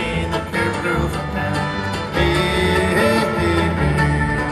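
A live bluegrass band plays an instrumental passage through arena sound: acoustic guitar with banjo over a steady bass line, with sliding notes in the lead.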